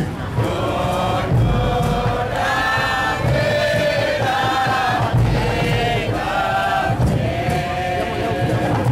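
A group of marchers singing a chant together, many voices holding long notes in phrases of about a second each.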